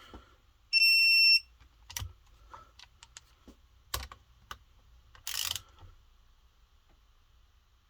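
A digital torque wrench gives one steady high beep of well under a second about a second in, the signal that a cylinder bolt has reached its set torque. Around it come scattered metal tool clicks and a short rasp about five seconds in.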